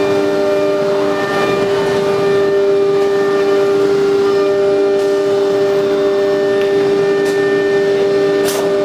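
CNC router's high-speed spindle motor running with a steady high whine and fainter overtones above it. A short high hiss comes near the end.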